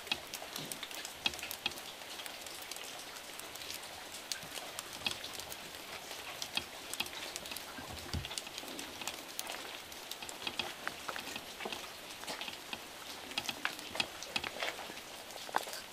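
Rain falling steadily, with a hiss of drops and many small drip ticks on wet ground and leaves. A brief low thump about eight seconds in.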